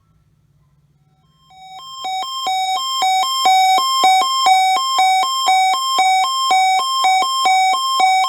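Electronic two-tone warning alarm over a weather radio broadcast, alternating rapidly between a high and a low buzzy tone at about two high-low cycles a second. It comes in about a second and a half in, swells quickly to full level and cuts off abruptly.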